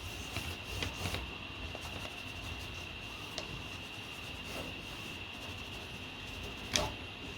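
Pencil rubbing across a paper template as lines are marked out, with light scattered ticks and a sharper click near the end. A faint steady high-pitched whine runs underneath.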